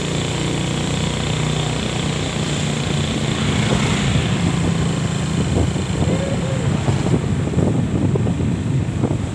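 Steady low drone of a motorbike engine and road noise heard while riding in traffic, with a noisy rush over it and the engines of surrounding motorcycles.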